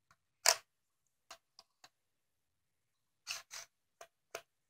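Plastic clicks and knocks as a scope is pushed and fitted onto a toy BB-gun shotgun: one sharp knock about half a second in, the loudest, then scattered lighter clicks and, near the end, two short scrapes followed by two more clicks.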